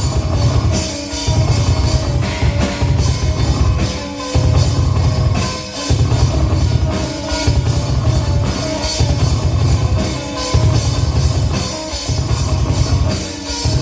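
Live rock band playing an instrumental passage of an original song, driven by a full drum kit with a pounding bass drum and crashing cymbals over a heavy low end.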